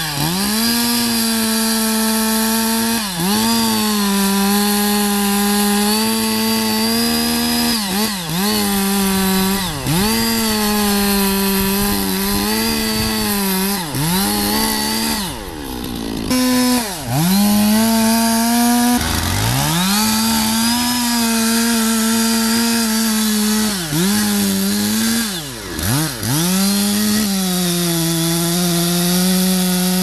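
Petrol chainsaw running at full throttle while cutting into a large tree trunk. Its engine pitch dips briefly under load every few seconds and recovers. Around the middle the sound drops out for a moment, then the saw revs up and cuts on.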